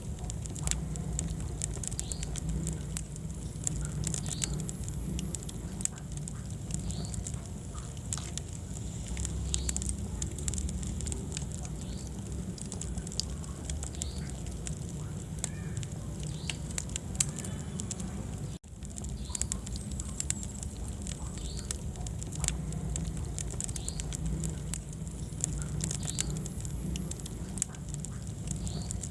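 Wood fire crackling in a fireplace: frequent sharp pops and snaps over a low rumble of the flames. The sound cuts out for an instant about two-thirds of the way through.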